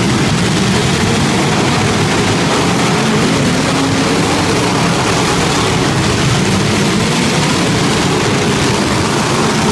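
Demolition derby car engines running at high revs in a steady, loud roar.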